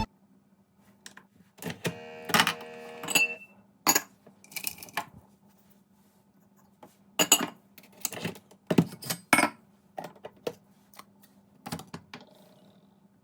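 Scattered light clinks and taps of kitchenware being handled, with a brief ringing tone lasting about a second, starting about two seconds in.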